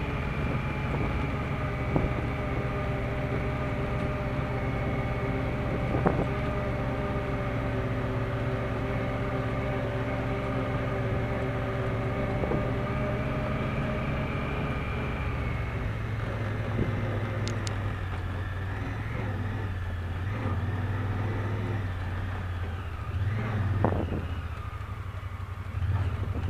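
Honda Pioneer side-by-side's engine running at a steady pace, heard from the driver's seat, with the rumble of tyres on a dirt track and a couple of sharp knocks. About two-thirds of the way in the engine note drops, and a few short revs come near the end.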